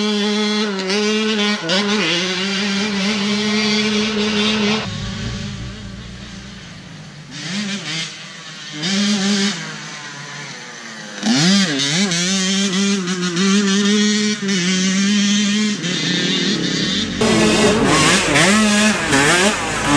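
Enduro dirt bike engines revving hard and easing off as they ride a dirt trail, pitch swinging up and down with the throttle. The sound drops to a more distant engine for a few seconds about five seconds in, then comes back loud about eleven seconds in and again near the end.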